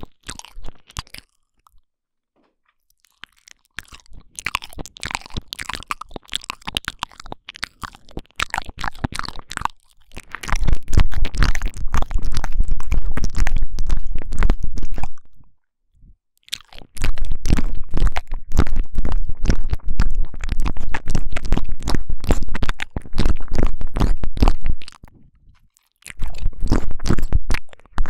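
Close 'ear eating' mouth sounds on a binaural microphone: wet clicks, smacks and tongue movement right against the mic's ear. A brief silent pause comes about two seconds in, and the later stretches are louder and denser, with a heavy low rumble.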